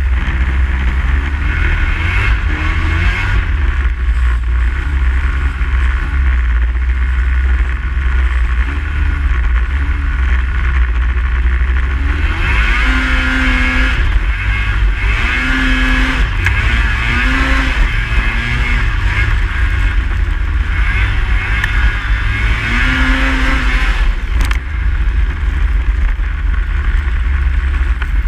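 Snowmobile engine running under way over a steady low rumble. Its pitch rises and falls with the throttle, climbing most clearly about halfway through and again a little later.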